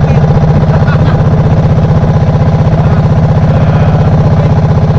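Bangka's engine running steadily at close range, a fast, even pulsing chug.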